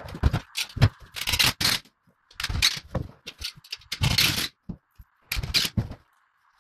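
A quick run of short rattles, scrapes and clatters from screws in a plastic screw box and steel radiator brackets being handled and fixed to the wall, with brief gaps of silence between them.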